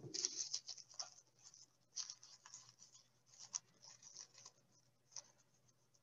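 Faint, irregular rustling and crinkling of tissue paper as fingers pull up and separate its layers.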